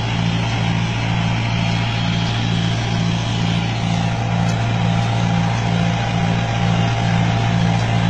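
Engine of a ploughing machine running steadily under load, a low drone with a regular pulse about twice a second.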